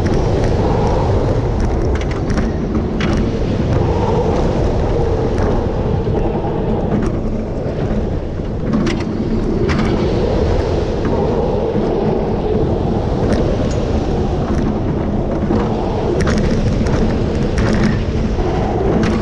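Onboard sound of an RMC single-rail roller coaster train running through its course: a loud, steady rumble of wind buffeting the microphone and the wheels on the steel rail, with scattered clicks and rattles.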